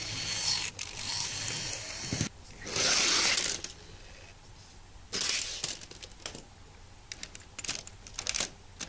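Model railway locomotive running along the track and ramming its wagons, with a loud rush of noise about three seconds in. Small plastic wagons clatter and click near the end as they are knocked over and derail.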